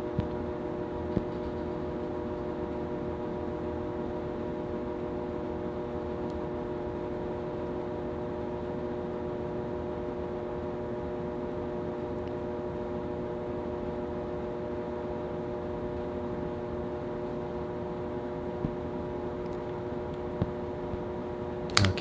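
Steady hum of a small electric motor, such as a fan, running at one speed, with several steady tones layered in it and a few faint clicks.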